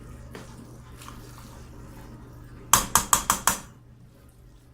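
A metal utensil knocking against a cooking pot five times in quick succession, about six knocks a second, near the middle.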